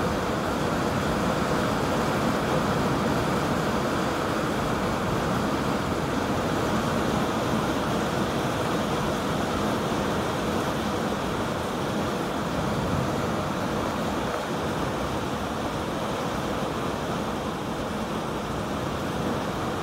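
Thunderstorm ambience: a steady rushing noise with no distinct thunderclaps.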